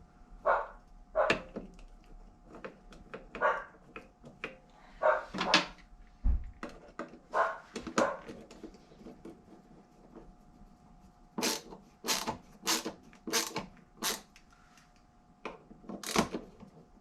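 A dog barking repeatedly in short, separate barks, with a quicker run of barks about two-thirds of the way through.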